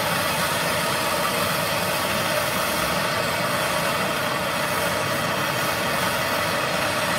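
MAP gas torch burning with a steady, even hiss.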